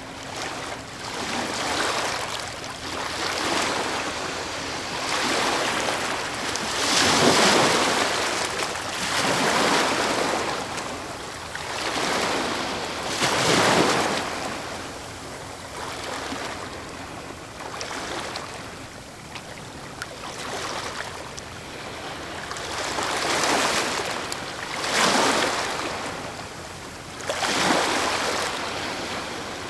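Ocean waves breaking and washing on a shore, the surf swelling and ebbing every few seconds, with a handful of louder breaks.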